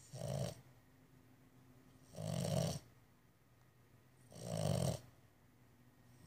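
Bulldog snoring: three snores about two seconds apart, each lasting about half a second.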